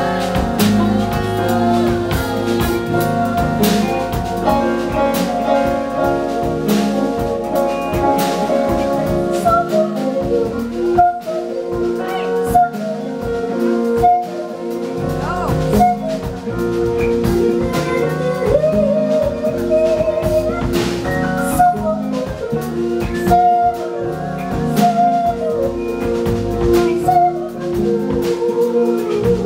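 Live band music with drum kit and electric bass under sustained chords, and a woman singing into the microphone.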